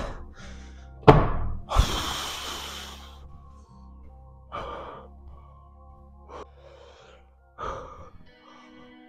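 A person breathing hard and gasping from the exertion of a set of one-legged squats, over background music, with two sharp thuds about a second and two seconds in.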